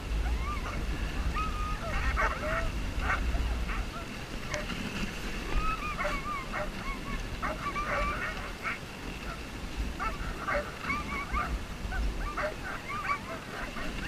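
Sled dogs yipping and whining in many short, rising and falling cries, with a low rumble underneath.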